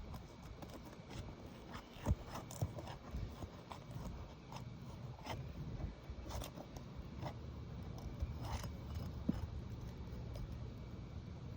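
Irregular clicks, scrapes and cracking of a tool working under brittle three-tab asphalt shingles, the shingle breaking as it is lifted: a sign that it is too brittle to be repaired. A steady low rumble runs underneath.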